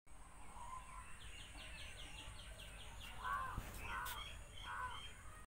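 Birds calling outdoors: a quick run of about ten high chirps, then three louder, harsher caw-like calls.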